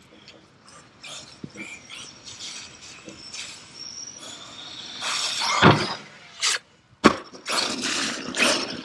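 Traxxas Sledge RC monster truck driving, its electric motor whining up and down. A loud clattering hit comes about five and a half seconds in, then a sharp knock near seven seconds.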